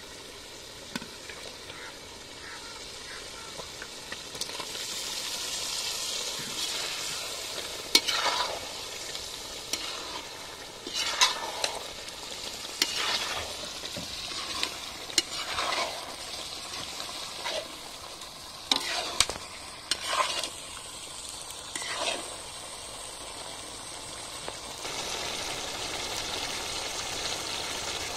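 Masala gravy bubbling and sizzling in an iron kadai as peeled boiled eggs are dropped in and stirred with a metal ladle. The ladle scrapes and knocks against the pan in sharp strokes about every two seconds through the middle of the stretch.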